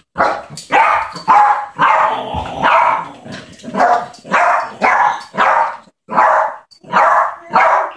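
Yorkshire terrier barking repeatedly in play, short yaps coming about two a second, with a brief pause about six seconds in.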